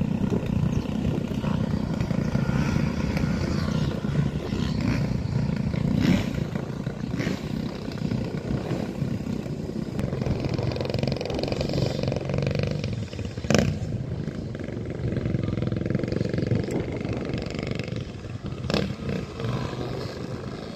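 Motocross dirt bike engines revving and running at a distance as riders circuit the track, over a steady low rumble, with a few sharp knocks.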